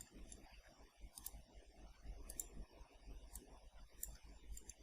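Faint computer mouse clicks, a handful scattered irregularly over near-silent room tone.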